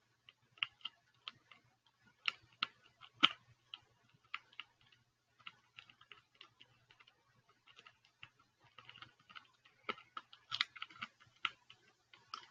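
Lock-pick rake scraping and clicking over the pin tumblers of a Master Lock padlock held under a tension wrench. The clicks are faint, small and irregular, with a louder one about three seconds in.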